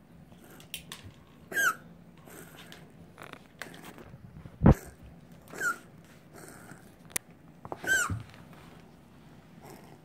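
Domestic cat coughing in a low crouch with the neck stretched out: a series of wheezing coughs with a high squeaky tone, four strong ones with fainter breaths between, the loudest a sharp hack about halfway through.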